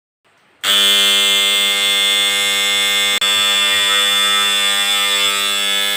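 Doorbell-type electric buzzer of a DIY water level indicator switching on about half a second in and buzzing steadily, with a momentary break about three seconds in. It sounds because the rising water has reached the probe wires at the set level in the tank, tripping the alarm.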